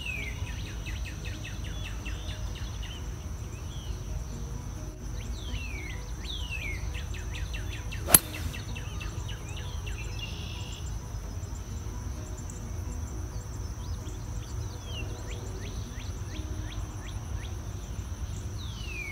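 A 3 hybrid strikes a golf ball off the tee, a single sharp click about eight seconds in. Behind it run a steady high insect drone, repeated short falling bird whistles and a low steady rumble.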